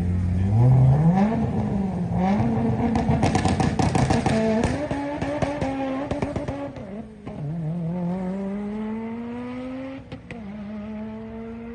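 Car engine at full throttle down a drag strip: it revs and wavers, then climbs in pitch. The pitch drops sharply at an upshift about seven seconds in and again near ten seconds, rising again after each shift. A run of rapid sharp crackles comes from about three to six seconds.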